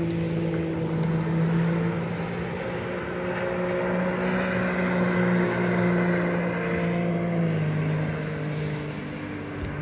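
Steady engine drone from a motorized watercraft on the water, its pitch shifting slightly a couple of times and dropping a little about seven and a half seconds in.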